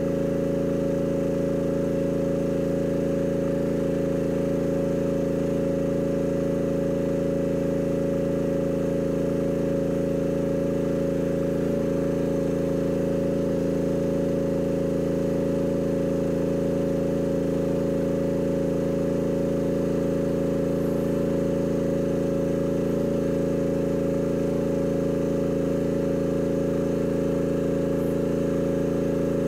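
Mini excavator's engine running at a steady, unchanging speed, with no rise or fall in pitch or load.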